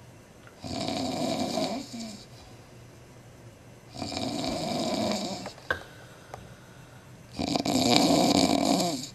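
Very loud snoring from a man passed out drunk on a couch. Three long snores come about three and a half seconds apart.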